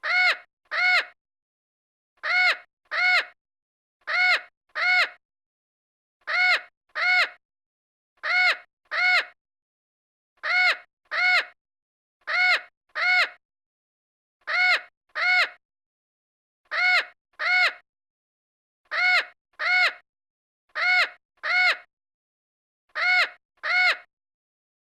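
Crow cawing in pairs: two short caws in quick succession, the pair repeated about every two seconds, twelve times, with silence between.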